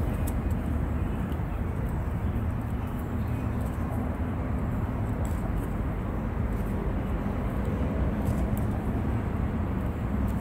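Steady low outdoor rumble, with a few faint light clicks as food is scraped from a ration pouch into a metal pan.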